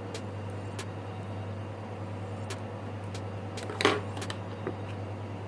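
Small clicks of tools and phone parts being handled during reassembly, with one louder knock a little under four seconds in, over a steady low hum.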